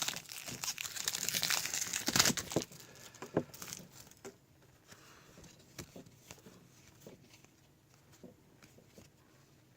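Trading-card pack wrapper crinkling and tearing open for the first two and a half seconds or so, followed by scattered faint taps as the cards are handled.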